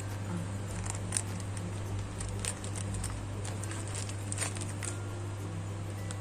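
Paper burger wrapper rustling and crinkling in short, scattered bursts as the burger is handled and lifted out of it, over a steady low hum.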